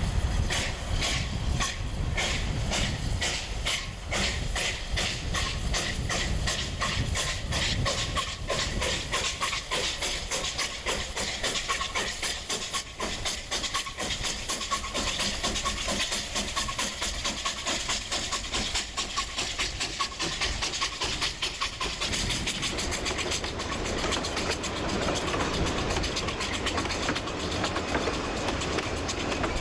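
Narrow-gauge steam locomotive pulling away with a train, its exhaust chuffs quickening steadily, with steam hissing. About 22 seconds in the chuffing gives way to the carriages rolling by, wheels clicking over the rail joints.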